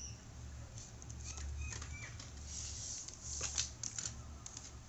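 Handling noise of a soldering iron's black rubber power cord being uncoiled and laid down on a table: rustling, light slaps and scattered clicks, with the sharpest click about three and a half seconds in.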